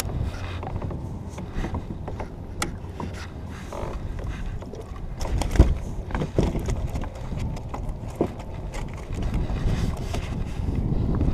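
Irregular clicks, knocks and rattles as a fishing reel, tackle and a freshly landed fish are handled aboard a plastic fishing kayak, with one louder knock about five and a half seconds in. Wind rumbles on the microphone underneath.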